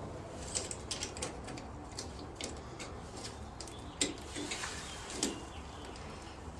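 Stainless steel pipe fittings and clamp clicking and clinking as a hose adapter is fitted onto a water tank's outlet pipe. The sharpest click comes about four seconds in.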